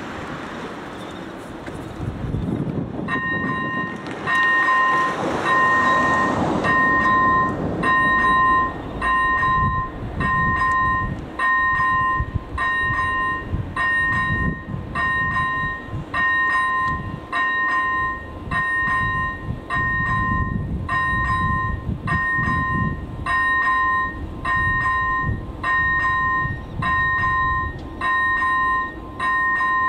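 Level-crossing electronic warning bell (AŽD ZV-01 on AŽD 97 crossing lights) starting about three seconds in and ringing an even two-tone ding a little under once a second, signalling that a train is approaching. Road traffic rumbles underneath.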